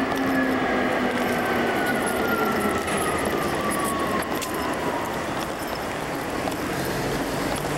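City street traffic noise, with a thin whine that slowly falls in pitch over the first five seconds or so.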